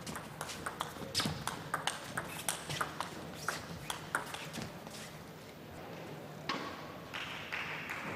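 Table tennis rally: the ball clicks back and forth off rackets and table about four times a second for some five seconds. About six and a half seconds in, crowd applause rises.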